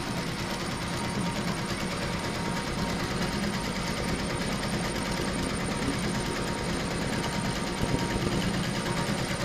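HSW 12-needle high-speed embroidery machine running and stitching, a rapid, steady mechanical clatter of needle strokes.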